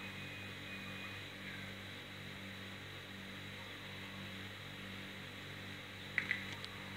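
Steady low electrical hum with a hiss. A few sharp clicks come about six seconds in and are the loudest part.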